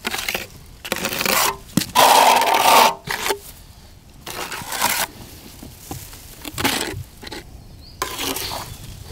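Steel plastering spatula and trowel scraping render: top-coat plaster is spread onto the facade and scraped off the blades in a series of irregular strokes. The longest and loudest stroke comes about two seconds in.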